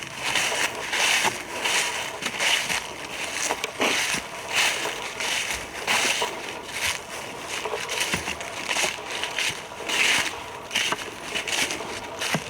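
Footsteps crunching through a thick layer of dry fallen leaves, a steady walking rhythm of about three steps every two seconds.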